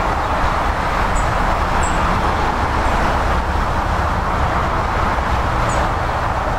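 Steady hiss and rumble of an industrial tank steam locomotive standing in steam, with a few faint high bird chirps.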